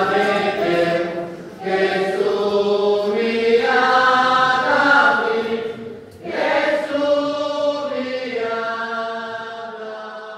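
A group of voices singing a hymn at the close of Mass in a stone church, in three held phrases with short breaks between them. The last note is held and fades away near the end.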